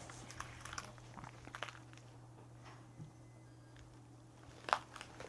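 Quiet room with a steady low electrical hum and a few soft, scattered clicks and small handling noises, the sharpest near the end.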